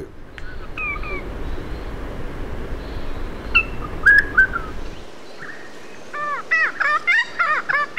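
Regent honeyeater song: scattered short chirps, then a quick run of arching notes in the last few seconds. A background hiss drops away about five seconds in.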